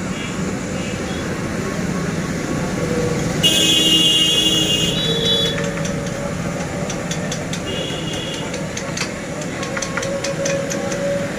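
Old Royal Enfield Bullet's single-cylinder four-stroke engine running with its thumping beat, with a brief high-pitched sound about three and a half seconds in.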